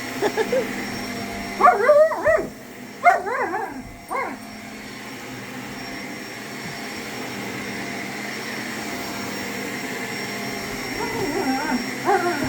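Shark vacuum cleaner running steadily while a German Shepherd barks and yips at it: a few quick barks about two seconds in, more about a second later, and another run near the end.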